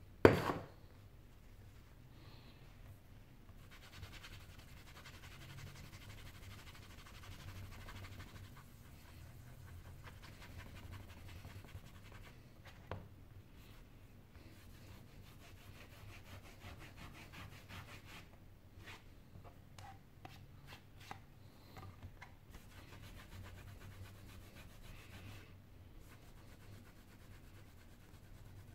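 A cloth rubbing and wiping over a phone's glass back panel to clean it, a faint scrubbing that comes and goes, with a sharp knock just after the start.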